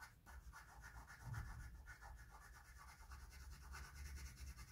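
Faint scratching of a pencil shading on paper in quick repeated strokes.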